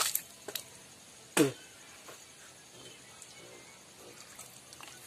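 A person spitting out after brushing teeth: one loud, short spit with a falling vocal sound about a second and a half in, after a few small clicks, then only faint small sounds.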